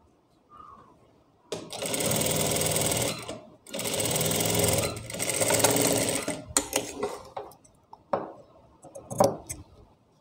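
Industrial sewing machine stitching a folded binding strip onto a neckline, in two runs of about two and three seconds with a brief stop between. After the second run come a few short scattered clicks.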